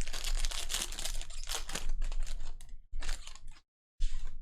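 Trading cards and foil pack wrappers being handled: a dense run of quick clicks and rustles for about three seconds, then two short bursts.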